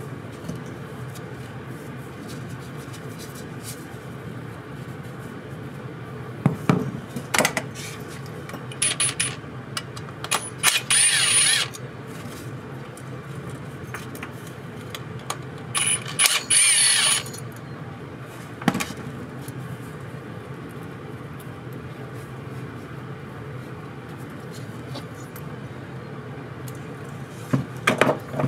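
Cordless power screwdriver whirring in two short runs of a second or two, with clicks and knocks of small carburetor parts being handled before, between and after them, over a steady low hum.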